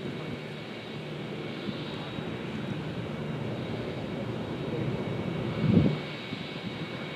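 Distant Lockheed TriStar airliner on approach with its landing gear down: a steady jet rumble from its three Rolls-Royce RB211 turbofans with a faint high whine, growing slowly louder. A brief low thump about six seconds in is the loudest moment.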